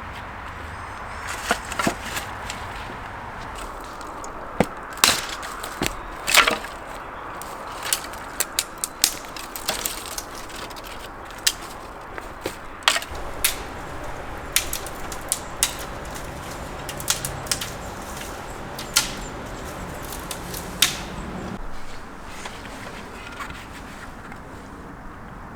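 Irregular sharp wooden knocks and cracks, dozens of them at uneven spacing, some much louder than others, over a steady low background.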